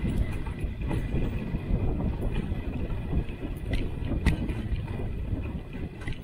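Dog sled gliding over snow: a steady rushing scrape of the runners with wind on the microphone, and a few sharp knocks.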